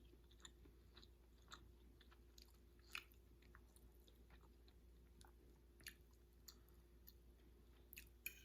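Faint chewing of salmon and rice, with small sharp mouth clicks scattered every half second to a second over a steady low hum.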